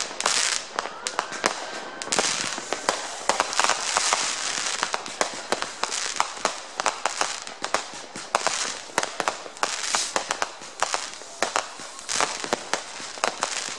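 Many fireworks going off at once: a dense, overlapping string of bangs and pops from firecrackers and rocket bursts, with a crackling hiss between them.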